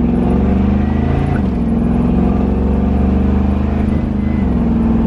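Chevrolet Nova's swapped-in 6.0-litre LS V8 running under way. About a second in, the engine note dips briefly and recovers, as the rebuilt 4L80E automatic shifts. The pitch steps up again near the end.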